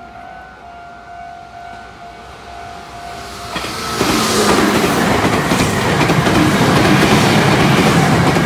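A level-crossing warning alarm rings with a steady tone. About four seconds in, a red Meitetsu electric commuter train arrives and passes close at speed, its wheels rumbling and clattering over the rails and drowning out the alarm.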